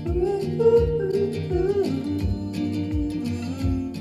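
Song with acoustic guitar and bass played back through KRK Rokit 8 G4 studio monitors and picked up by a pair of microphones in the room.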